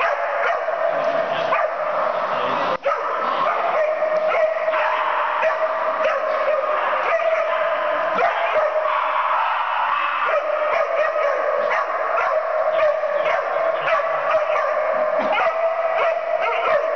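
Puppies playing rough with each other, giving many short yips and barks over a steady hum.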